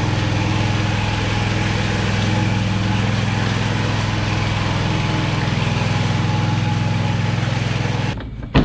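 Gasoline-engine concrete power trowel running steadily at working speed during a finishing pass over a fresh slab. It cuts off abruptly near the end, followed by a single sharp knock.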